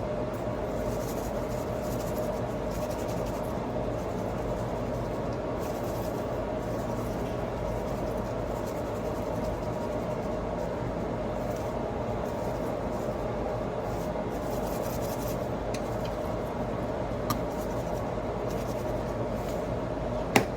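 A steady mechanical hum with a constant tone, like a running fan or motor, with light rubbing or scraping sounds now and then.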